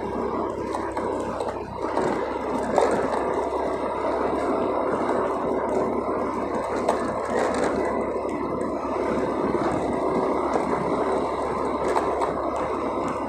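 Motorcycle being ridden along a paving-block lane, heard from on board: a steady mix of engine, tyre and wind noise.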